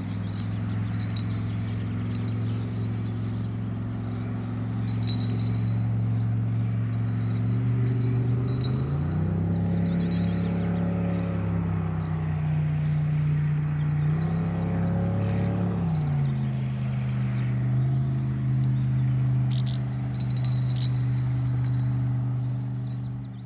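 Baja 240 motorboat's V8 engine running at low speed. Its pitch rises about a third of the way in, holds for several seconds, then drops back to the lower note. Near the end it fades out.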